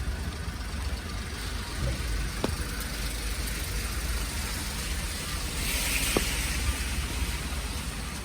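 Wet street traffic: a steady low rumble and hiss, with a car passing on the wet road about six seconds in.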